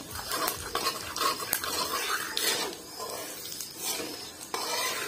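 A flat metal spatula scraping and stirring in a metal kadai, over the sizzle of hot mustard oil.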